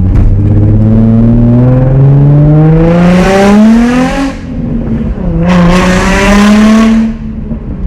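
Car engine accelerating hard. The pitch rises for about four seconds, drops sharply at a gear change, then climbs again in the next gear before levelling off and easing near the end.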